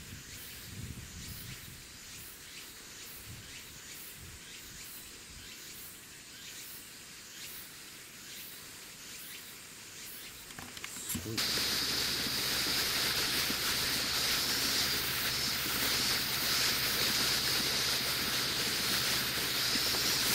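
Faint outdoor background noise. About eleven seconds in, it gives way abruptly to a louder, steady hiss with a low hum underneath.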